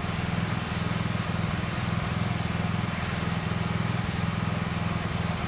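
Small portable concrete mixer running, its motor giving a steady, rapid low pulsing hum.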